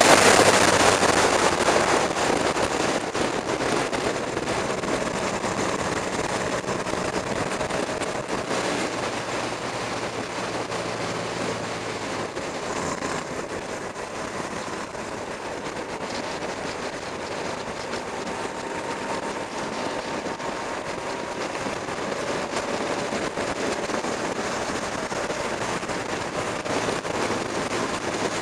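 Motorcycle riding at speed, with wind rushing over the onboard camera's microphone. It is loudest at the start, eases off over the first couple of seconds, then holds steady, with a faint engine note drifting slowly in pitch underneath.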